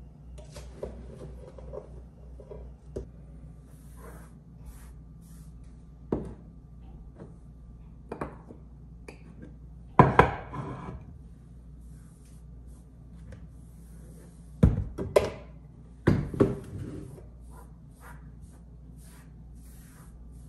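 Ceramic kitchen canisters and their lids handled on a marble countertop and wooden tray: scattered light taps and scrapes, with a louder knock-and-clink about halfway through as a canister is set down on the tray, and two more such clusters a few seconds later.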